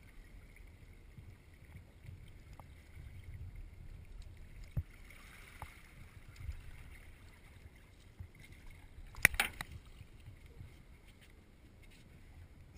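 Water sloshing and a low wind rumble as a bull redfish is handled at the side of a boat. A couple of sharp knocks come about nine seconds in, as the fish is lifted from the water onto the boat's gunwale.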